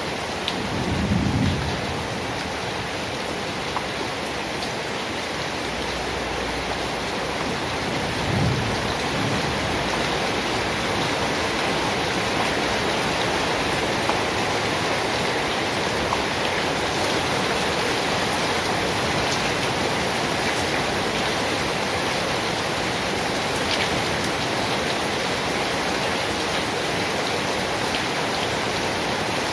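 Steady rain falling, with two short low rumbles of thunder: one about a second in and another about eight seconds in.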